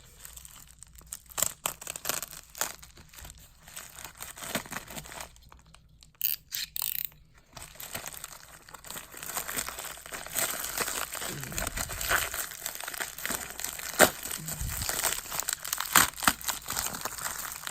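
A mail package being opened by hand: packaging tearing and crinkling in irregular rustles, with a few sharp knocks near the end.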